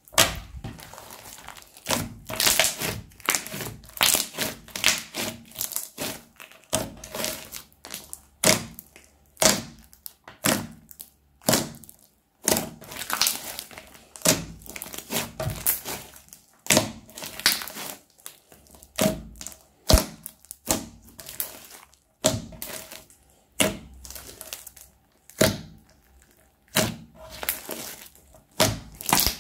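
Crunchy slime full of small beads being squeezed, folded and stretched by hand: a steady run of sharp crackling pops and squishes, coming about one or two a second.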